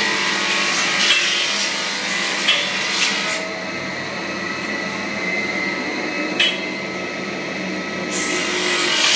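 Electric drum floor sander running as it sands a parquet floor: a steady motor hum with a gritty scraping hiss and a few sharp ticks. For a few seconds in the middle the high hiss drops away, then returns.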